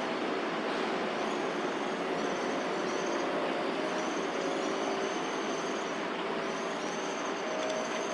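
Steady road traffic noise, an even hiss and rumble with no single vehicle standing out, with faint high thin calls on top now and then.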